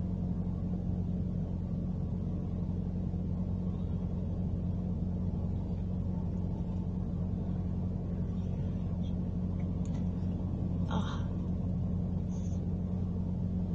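Steady low hum, constant in pitch and level, with no speech; a faint brief rustle about eleven seconds in.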